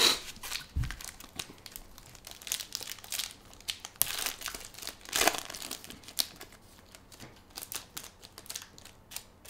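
Shiny foil trading-card pack wrappers being torn open and crinkled by hand: irregular crackling and ripping, loudest right at the start and again about four to five seconds in.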